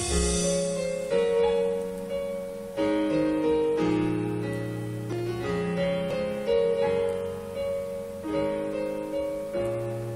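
Sequenced MIDI arrangement of a slow pop ballad played back on a Roland SC-88Pro sound module. Piano leads over synth bass, strings and pads, with chords changing every second or two. A last chord is struck near the end and slowly dies away as the song closes.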